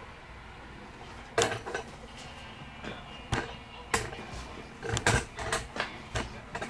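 Scattered clicks and knocks of objects being handled and set down on a workbench. A sharp knock comes about a second and a half in, and a quick cluster of louder ones comes about five seconds in.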